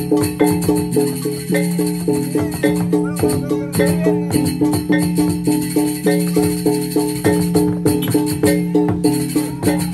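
Balinese gamelan accompanying a barong, playing a fast, steady beat of about three strokes a second: struck metal tones ringing over a held low tone, with crisp clashes on the beats.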